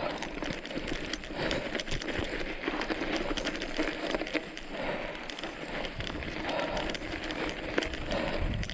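Irregular crunching and clicking of movement over a rough dirt trail, with no steady tone.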